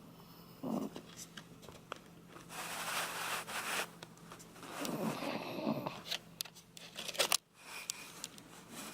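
A sleeping Shiba Inu snoring like an old man: a short low grunt about a second in, then a long noisy breath in and a rough breath out, with a few sharp clicks near the end.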